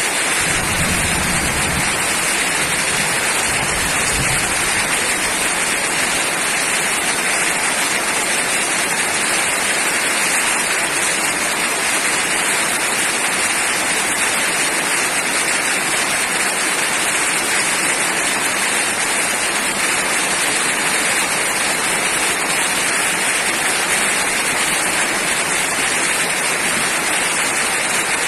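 Heavy rain falling steadily: a dense, even hiss that does not let up.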